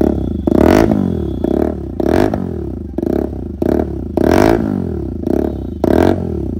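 Hero Karizma XMR 210's single-cylinder engine revved in quick repeated throttle blips, each rising and falling in pitch, through a newly fitted aftermarket R1M-style silencer.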